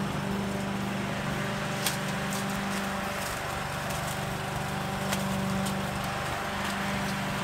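Petrol walk-behind rotary lawn mower running steadily as it is pushed over brick paving, with a few sharp ticks as grit is thrown up from under the deck.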